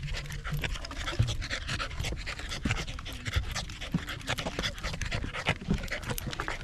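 Corgi panting quickly and steadily as it trots along, with the occasional dull thud of hiking boots stepping on wooden boardwalk planks.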